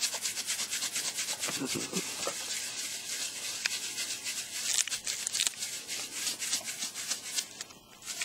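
Scratchy rubbing or scraping made of many quick strokes, dropping off briefly near the end.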